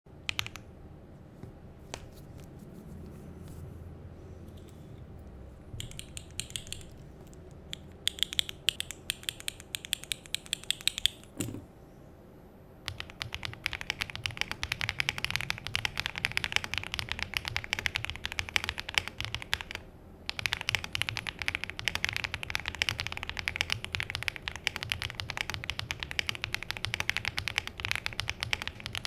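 Mechanical keyboard with HMX Poro switches being typed on. A few scattered keystrokes come first, then groups of presses, then fast continuous typing from about halfway through, with a short pause near the two-thirds mark.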